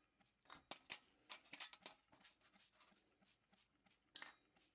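Toothbrush scrubbing degreaser on a sudsy steel toy-truck part: faint, short, scratchy bristle strokes in irregular bursts, busiest in the first two seconds, with a couple more near the end.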